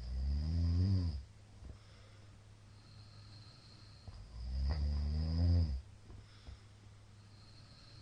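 A middle-aged man snoring in his sleep: two long, loud snores, one at the start and another about four seconds later, each lasting over a second, with quiet breathing between them.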